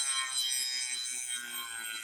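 Dremel rotary tool grinding the edge of a steel lawn mower blade on low speed: a high motor whine over a rasping grind, the pitch sagging slightly as the tool is pressed into the metal.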